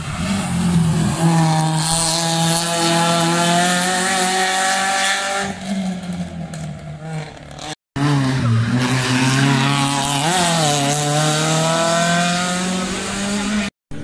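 Hill-climb rally hatchbacks' engines revving hard under full acceleration, the pitch climbing steadily, heard in two passes split by a sudden break about eight seconds in. In the second pass the engine note drops briefly and rises again about ten seconds in.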